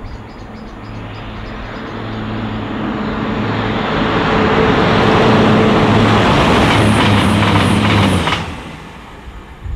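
CrossCountry Voyager diesel multiple unit approaching at speed and passing close by: a steady engine hum under a rushing noise that swells as it nears, with a quick run of clicks as it goes past, then the sound drops away quickly.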